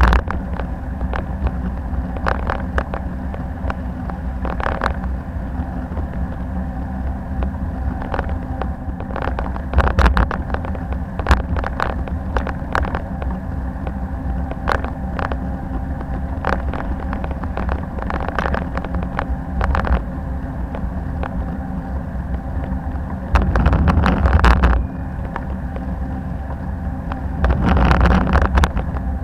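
Riding a bicycle on city streets, heard through an SJCAM M10 action camera: steady wind and road rumble with many irregular clicks and rattles, and two louder surges of rushing noise near the end.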